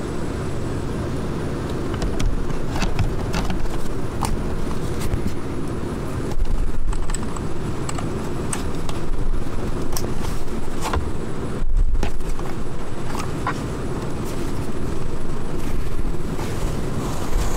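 Plastic interior trim panels and clips being handled and clicked back into place, a scattered run of short clicks and knocks over a steady low rumble.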